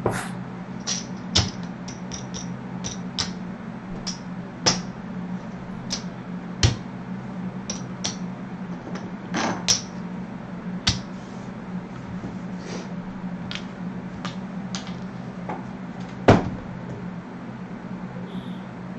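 Clay casino chips clicking against each other and onto the craps table as bets are stacked and placed: a scattered run of short sharp clicks, one louder clack about 16 seconds in, over a steady low hum.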